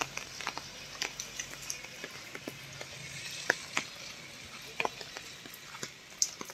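Light rain: a steady hiss with irregular drops ticking close by.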